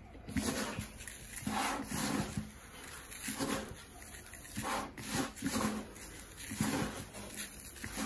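Bird seed rustling and pouring in a plastic basin as gloved hands scoop it up and let it fall, mixing the oil-coated seed, in irregular rushes every half second to a second.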